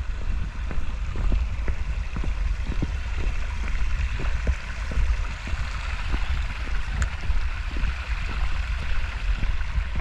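Mountain stream running over rocks, a steady rushing hiss, under a heavy low rumble and scattered light ticks.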